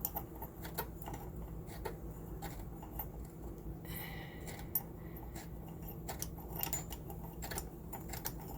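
Hand ratchet clicking in short, irregular strokes as a stuck roof air-conditioner mounting bolt is backed out, with a brief squeak about four seconds in.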